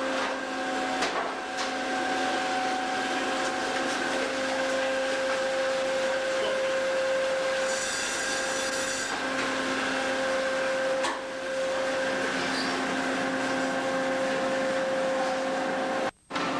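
Fish-processing machinery aboard a fishing vessel running steadily: a constant mechanical din with a steady hum. The sound cuts out briefly near the end.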